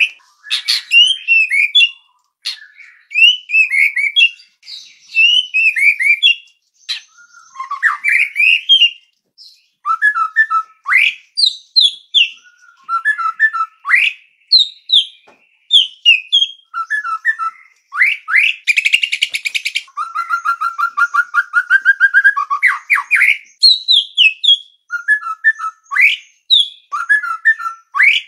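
White-rumped shama (murai batu) singing a varied song of loud, clear whistled phrases, with rising and falling glides, stuttered notes and short pauses between phrases. About two-thirds of the way through comes a long, fast trill.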